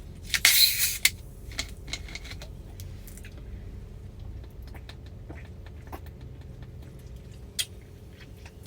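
A short, loud hiss of gas escaping as a bottle of Sprite is twisted open, then faint clicks and swallows as it is drunk.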